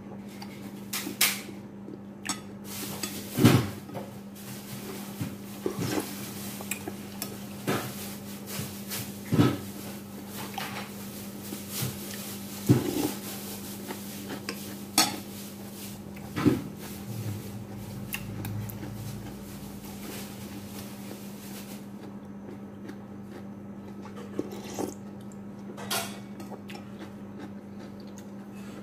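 Metal spoon clinking and scraping against a ceramic plate at irregular intervals, a sharp clink every second or two, fewer in the last few seconds. A steady low hum runs underneath.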